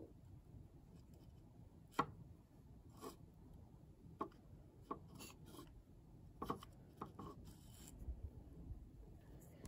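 Faint handling noises as fingers work clear putty among small plastic animal figures: a scattering of small clicks and taps, the sharpest about two seconds in, and a short rustle near the end.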